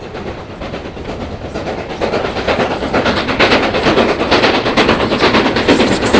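Steam locomotive passing at speed, its rapid, even exhaust beats and the train's running noise growing steadily louder as it approaches.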